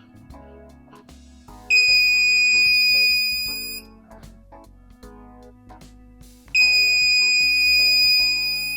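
The buzzer of a home-built Arduino smoke detector sounds a steady, high-pitched alarm tone twice, each about two seconds long. It means the MQ-2 sensor's smoke reading has crossed the set threshold. Background music plays under it.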